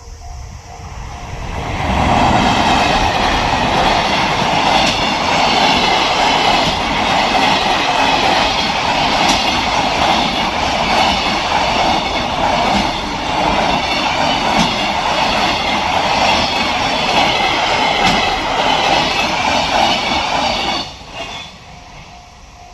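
Freight train passing over a level crossing: a long, loud run of wheels rumbling and clacking over the rail joints, building up about two seconds in and dropping away sharply near the end. The crossing's warning bell, a pulsing ringing tone, can be heard at the very start and again after the train has gone.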